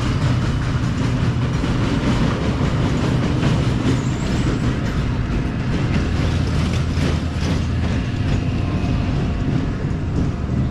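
A steady low mechanical rumble with continuous rattling and clatter.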